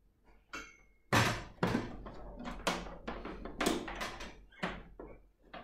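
A run of sharp knocks, about two a second, starting about a second in.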